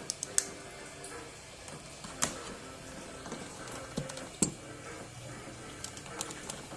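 Scattered sharp clicks and taps, three close together at the start and a few more spread through the rest, over faint background music.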